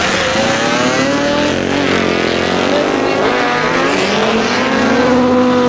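Several classic racing motorcycles passing at speed, their engines' pitch rising and falling as they go by.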